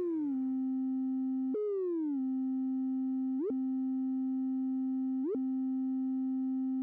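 A steady synthesizer tone with a few overtones whose pitch is bent by an envelope. It jumps up and glides back down near the start and again about a second and a half in. Then, twice, at about three and a half and five seconds in, it makes a quick upward swoop that snaps back to the held note.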